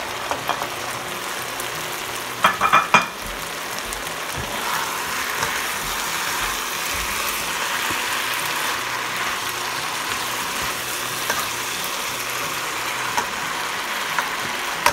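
Chicken, liver, mushrooms, carrots and green beans stir-frying in a nonstick pan: a steady sizzle as the spatula turns them. A quick run of sharp clacks comes about two and a half seconds in.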